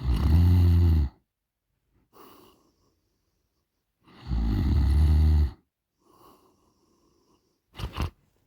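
A sleeping woman snoring loudly, two long snores about four seconds apart, each lasting about a second, with faint breaths between them. A brief sharp double sound comes near the end.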